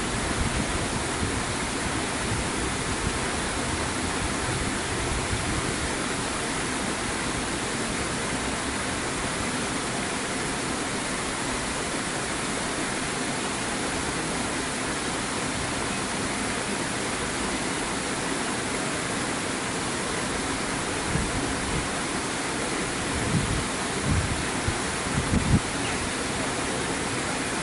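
Steady rushing of running water, such as flow at a flight of canal locks. Near the end a few short low buffets of wind hit the microphone.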